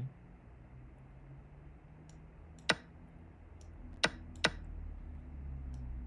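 A few separate sharp clicks: one loud click about two and a half seconds in, two more close together about a second later, and fainter ones between, over a faint low hum.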